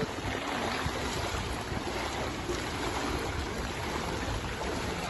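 Floodwater sloshing and splashing steadily around the legs of several people wading knee-deep through it.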